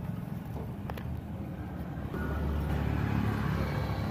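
A car engine idling steadily, with a sharp click about a second in. The idle rumble grows a little louder about two seconds in.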